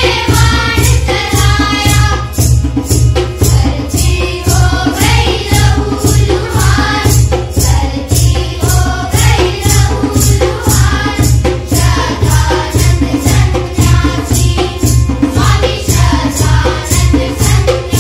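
Children singing a song together over recorded music with a steady percussion beat.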